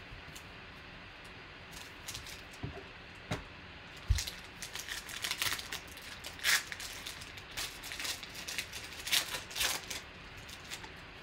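A foil trading-card pack being torn open and handled: irregular crinkling and tearing of the wrapper, with a soft knock about four seconds in.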